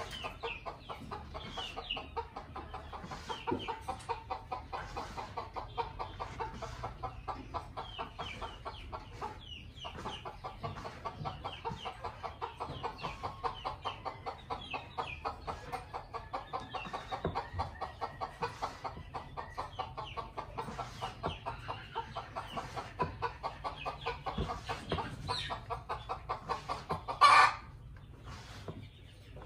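Caged red junglefowl clucking in a fast, even run of short calls, with small chirps above them. One loud, short call comes near the end.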